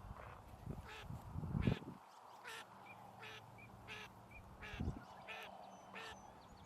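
A bird giving a steady series of short, harsh calls, about one every three-quarters of a second, with faint chirps in between. Low rumbles of wind or handling on the microphone come in the first two seconds and again about five seconds in.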